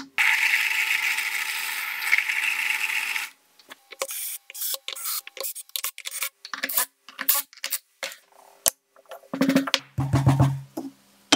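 A single hammer tap, then a cordless drill running steadily for about three seconds while it drills through an aluminium strip on a piece of plywood. Next comes a run of irregular sharp metallic clicks and taps, and near the end the drill/driver runs briefly as it drives a screw through the strip into the plywood.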